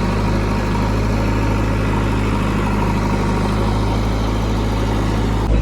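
Diesel engine of heavy earth-moving machinery idling steadily, with a low, even hum. The sound jumps abruptly louder just before the end.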